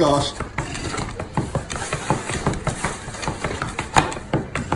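Irregular clicking and crackling of a white plastic takeout container being handled and opened, several clicks a second, with one sharper click about four seconds in.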